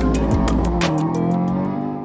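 Background music with a steady beat; the deep bass drops out about a second in.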